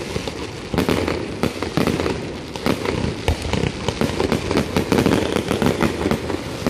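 Fireworks going off in quick succession: a dense, continuous run of sharp pops and crackles, many a second, with no let-up.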